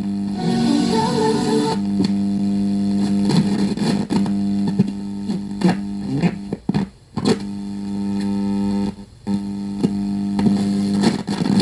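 Music from an FM broadcast playing through the repaired Sony CFS-1110S radio's speaker, over a steady hum. The sound briefly drops out twice, about six and a half and nine seconds in.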